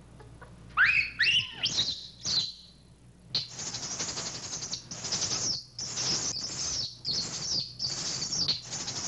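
Infant rhesus monkey screeching. There are a few shrill cries that rise and fall in the first couple of seconds, then a run of repeated high-pitched screeches, about two a second.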